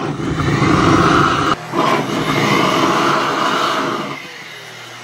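Flames in a soda can of burning flammable liquid, fanned by a stream of high-speed air, a loud steady rush of air and fire. There is a short break about one and a half seconds in, and the sound drops to a quieter steady rush after about four seconds.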